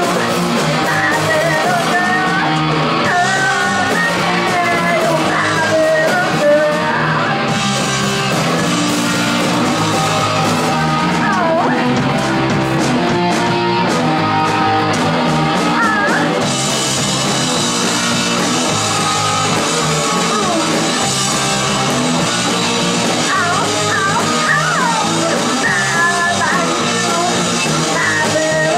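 Live rock band playing loud: a woman sings and yells into a microphone over drums, cymbals and bass guitar. About halfway through, a bright cymbal wash comes in and stays.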